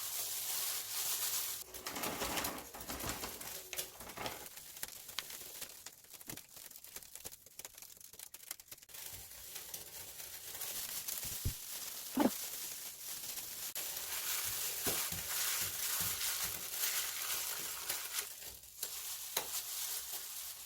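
Food sizzling as it fries in a pan: a steady hiss with scattered light clicks and knocks, and one short pitched call about twelve seconds in.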